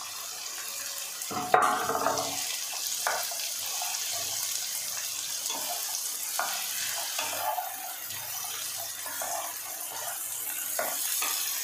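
Vegetables (potato, onion and peas) sizzling in a kadhai on a gas burner, with a wooden spatula knocking and scraping against the pan as they are stirred. A sharp metal clank about a second and a half in.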